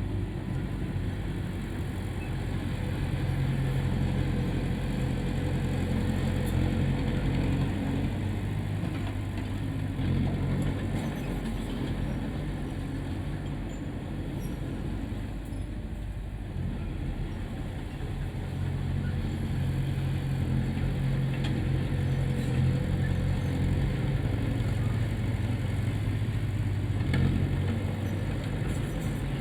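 Heavy diesel engine of earthmoving machinery running continuously with a low drone. It grows louder for several seconds twice, early on and again in the second half, and eases off in between.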